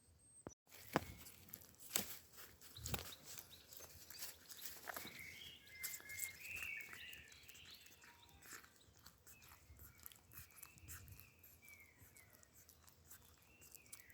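A bird of prey feeding, with sharp clicks and snaps of beak on meat and bone, and short chirping bird calls now and then.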